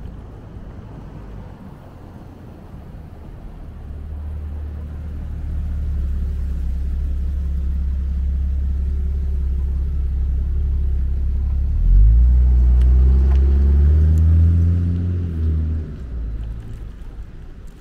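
A motor vehicle's engine running close by, growing louder over several seconds; about twelve seconds in it gets louder and rises in pitch as the vehicle accelerates, then drops away suddenly near the end.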